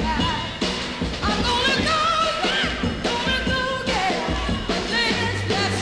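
Music: a song with a singing voice over instruments and a steady bass line.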